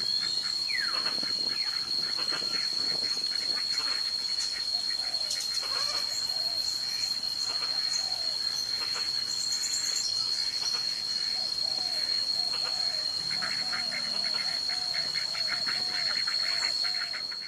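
A steady high-pitched insect whine from crickets or cicadas over a marsh, with scattered wild bird whistles that fall in pitch. In the last few seconds a flock of ducks gives a quick run of soft repeated quacks.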